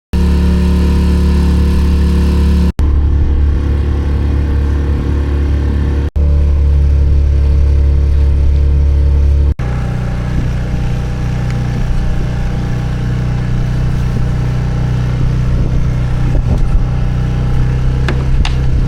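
Small outboard motor running steadily, its note changing after about ten seconds to a lower, slightly quieter drone. The sound breaks off abruptly three times where clips are joined.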